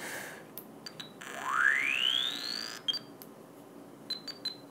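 Electronic tones from a small loudspeaker driven by a BASIC Stamp microcontroller circuit: two short high beeps, then a rising sweep lasting about a second and a half, a couple more beeps, and three quick beeps near the end.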